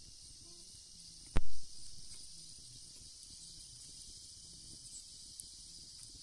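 Steady high-pitched insect chorus, with one sharp loud knock about a second and a half in.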